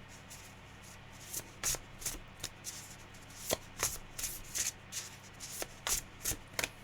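A deck of tarot cards being shuffled by hand: an irregular run of short, sharp card snaps and slaps.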